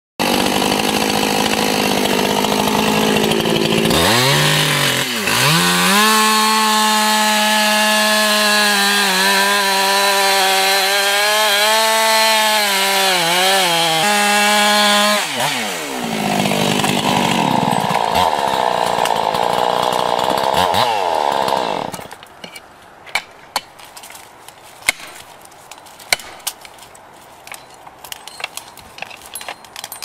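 Gasoline chainsaw revving and running at full throttle as it cuts into a large tree trunk, its pitch sagging under load. About 22 seconds in the saw stops, leaving scattered light knocks and clicks.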